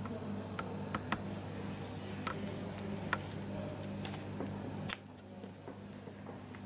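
Scattered light clicks and scrapes of a metal wax instrument against the wax rim and acrylic tooth, and of the cast on its articulator being handled, over a steady low hum. The sharpest click comes about five seconds in.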